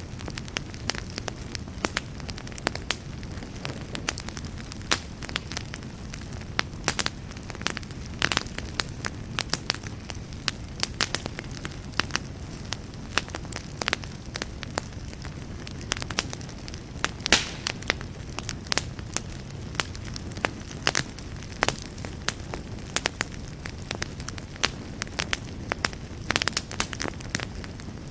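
Wood fire burning in a fireplace, with a steady low rumble under frequent, irregular sharp crackles and pops, one louder pop about two-thirds of the way in.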